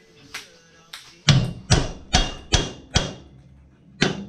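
Hammer striking metal: a light tap, then a run of five hard ringing blows about 0.4 s apart, and one more near the end, as a stuck part on a race car is knocked loose.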